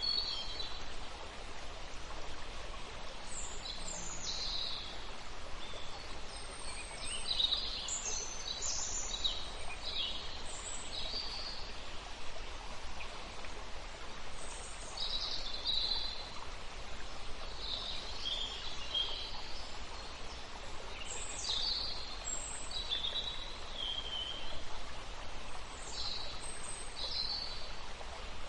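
Many short bird chirps and trills, one after another, over a steady rush of flowing water.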